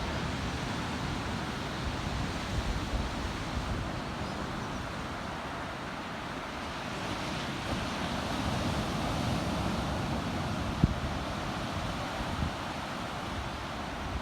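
Ocean surf breaking and washing on a beach in a steady rush, with wind buffeting the microphone in low gusts. A single sharp click comes near the end.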